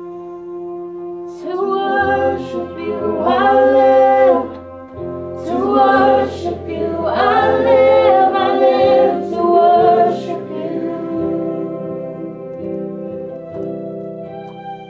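Worship music: a group of voices singing over held chords, the singing dropping away about ten seconds in and leaving the chords sounding.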